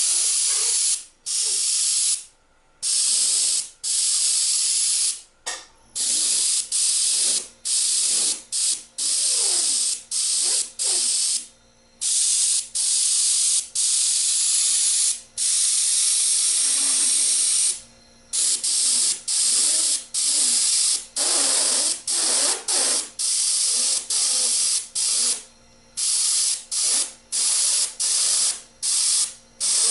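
An airbrush spraying paint in many short bursts: a steady hiss of compressed air that starts and stops each time the trigger is pressed and released, with brief gaps between bursts.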